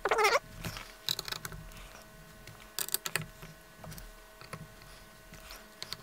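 Small clicks and light scrapes of a screwdriver and screws being worked into the metal chassis of a 1960s Panasonic transistor radio. A short vocal sound comes at the very start.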